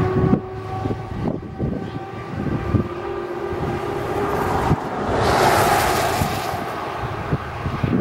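A truck engine's steady note fading as it drives away, then a pickup truck passing close, its tyre noise on the snowy road swelling and fading about five to six seconds in.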